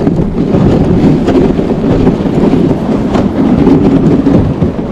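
Dog sled running fast over a packed snow trail: the runners scrape and rumble on the snow and the sled rattles, a loud, continuous, rough noise.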